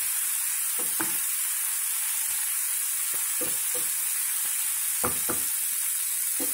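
Black chickpeas, onions and chilli-masala frying in a kadai: a steady sizzle, with a spatula scraping and tapping against the pan at irregular moments as the mixture is stirred, the masala being fried before water goes in.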